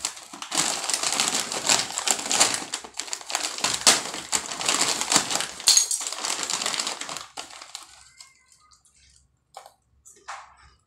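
Clear plastic snack bag being opened and handled, crinkling and rustling loudly for about seven seconds, then a couple of brief soft rustles near the end.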